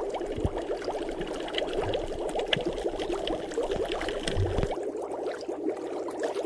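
Water bubbling: a steady, dense run of small pops, with a low rumble underneath that stops about three quarters of the way through.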